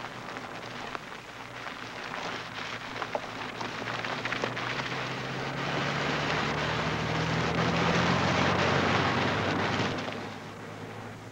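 A BMW E21 3 Series driven fast on a gravel road: tyres crunching and spraying stones, heard as a dense crackle of small clicks over the engine's steady note. It grows louder as the car comes on, then drops away about ten seconds in.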